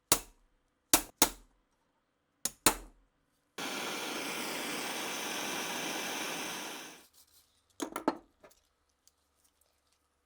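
Small metal pieces clinking and being set down, five sharp clinks in the first few seconds, then a steady hiss lasting about three seconds, then two more clinks.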